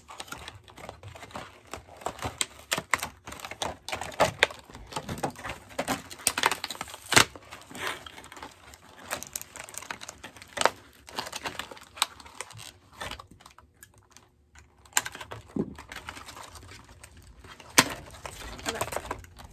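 Plastic doll packaging being handled and torn open: crinkling and rustling broken by irregular clicks and snaps, with a brief lull about two-thirds of the way through.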